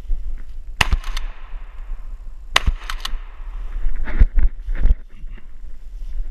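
Two shotgun blasts about two seconds apart, each followed by a short rolling echo, as the hunter fires at wood ducks. A few dull knocks of movement through brush follow.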